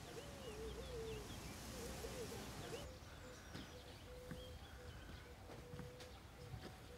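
Faint birdsong: a low, wavering call repeated several times in the first three seconds, with short high chirps over it.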